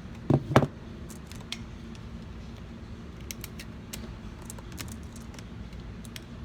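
Two dull knocks close together, followed by scattered light clicks, as of something being handled at close range.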